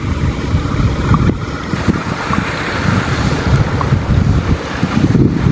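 Wind buffeting the microphone, a loud, gusty low rumble.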